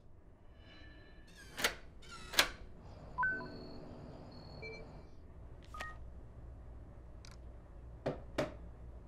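Two sharp clicks of taps on a smartphone's security app, then short electronic beeps and a run of steady chime tones as the home security system arms. Two lighter clicks come near the end.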